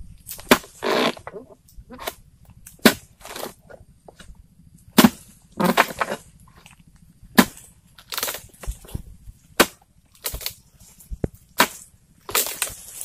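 Pole-mounted harvesting chisel striking the frond bases of an oil palm again and again, sharp thwacks at an uneven pace of about one a second. Some strikes are followed by a short rustle of palm frond.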